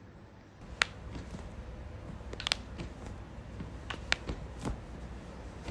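A handful of short, sharp clicks and snaps during a chiropractic adjustment of a relaxed patient. The loudest comes a little under a second in, a small cluster about two and a half seconds in, and two more near four seconds.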